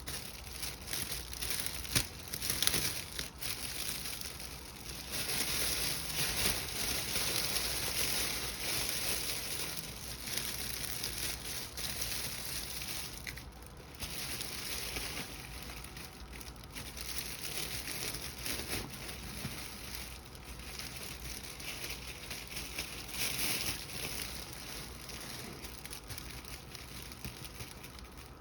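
Crinkling and rustling of the basket's wrapping as it is gathered and worked at the top closure, with a couple of sharp clicks early on.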